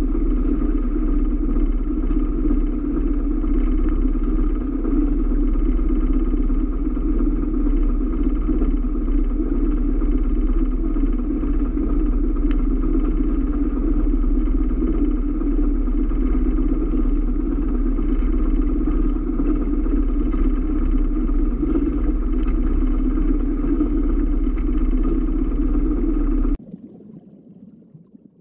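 A boat engine running steadily, a constant low drone that cuts off abruptly about two seconds before the end, leaving only a faint fading sound.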